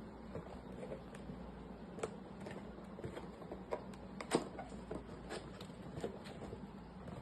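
A cardboard box and its packing being handled and opened by hand: scattered light taps and clicks, the loudest about four seconds in, over a faint steady low hum.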